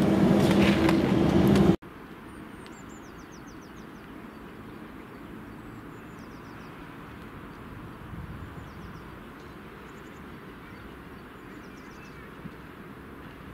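DB electric locomotive running through the station, loud with a steady hum, cut off abruptly about two seconds in. Then quieter station ambience: a low steady rumble, with small birds chirping in short high trills several times.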